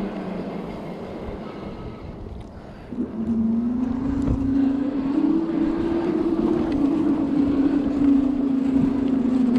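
Electric bike's motor whining under throttle: it starts about three seconds in, rises a little in pitch as the bike speeds up, then holds a steady note. Wind noise on the microphone runs underneath.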